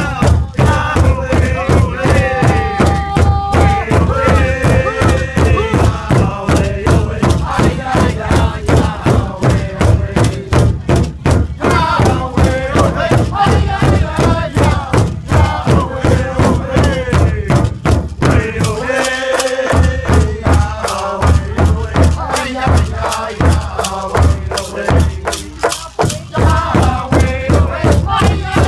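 Powwow big drum: a large hide drum struck in unison by several drummers with beaters in a steady beat, under a group of men singing a powwow song together. The drum drops out for about a second around two-thirds of the way through while the singing carries on.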